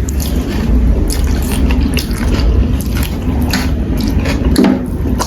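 Close-up wet eating sounds: instant noodles being slurped and chewed, with a quick run of small smacking, squelching clicks.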